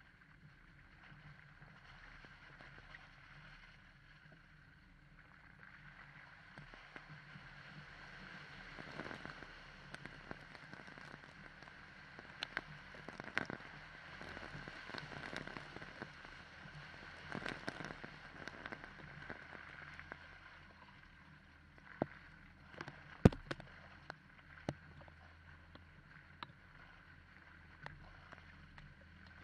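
Vehicle engine running steadily at low revs, with scattered sharp knocks and clicks, most of them in the middle and a few close together a few seconds before the end.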